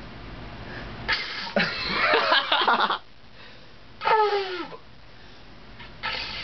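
Conch shell blown by an unpractised player: sputtering, breathy blasts with a short honk about four seconds in that slides down in pitch, the shell failing to sound a clear, steady note.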